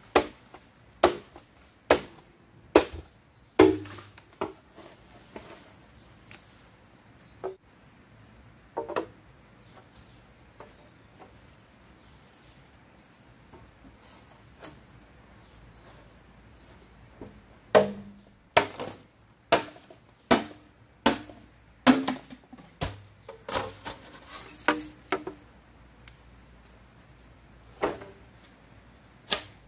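Repeated sharp knocks of a tool striking bamboo, in spells of about one blow a second with pauses between, over a steady high chirring of insects.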